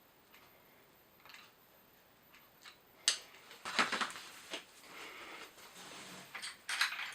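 Small hard clicks and knocks with a stretch of light scraping, as the parts of a chainsaw oil pump are handled and fitted into place by hand.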